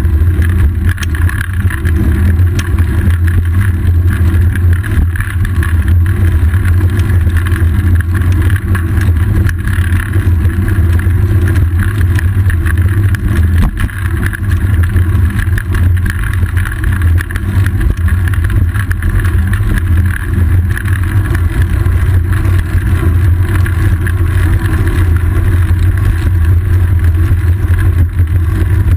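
Steady, loud low rumble of a bicycle in motion, picked up by a camera mounted on the seat post: wind and road vibration running on without a break.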